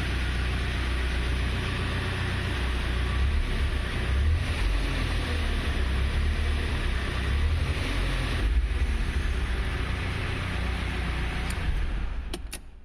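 BMW E36 engine running, rising in level slightly a couple of times as if blipped above idle, then dying away near the end with a few clicks. It has low oil pressure at idle: the oil warning light only goes out above 1000 RPM, which the owner puts down to a leak or the wrong oil type.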